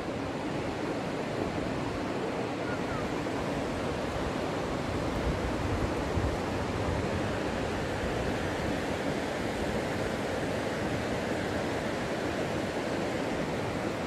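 Steady rushing of a waterfall and its river, an even, unbroken wash of falling and running water.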